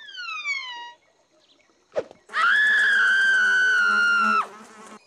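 Cartoon sound effects: a short falling whistle-like tone, a sharp click about two seconds in, then a high held tone lasting about two seconds over a faint buzz of flies.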